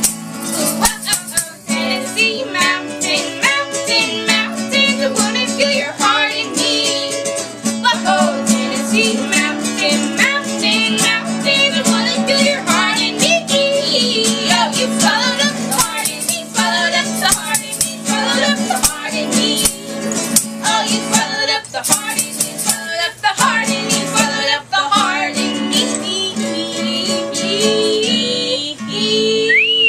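Live acoustic folk song: acoustic guitar with a shaker rattle and a wavering vocal melody line. A whistled melody comes in right at the end.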